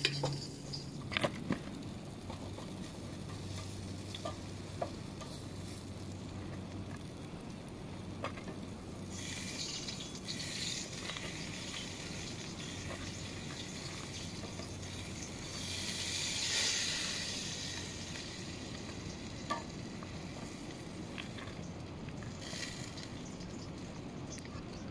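Grilled meat sizzling in a steady hiss that swells louder about ten seconds in and again about seventeen seconds in, with a few sharp clicks of metal tongs. At the very start, the low hum of the portable charcoal grill's battery fan cuts out as it is switched off.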